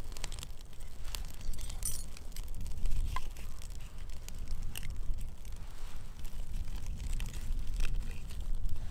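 Small twig and kindling fire catching, with scattered sharp crackles and pops over a steady low rumble.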